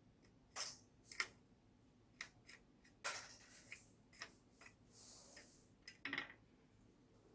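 Faint, scattered sharp clicks and light taps of small tools and parts being handled, about a dozen at uneven intervals, with a short soft rustle about five seconds in.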